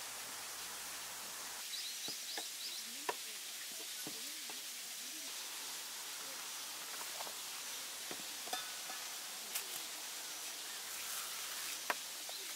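Knife slicing a peeled banana on a wooden tabletop, the blade giving a few sharp knocks on the wood, over a steady background hiss.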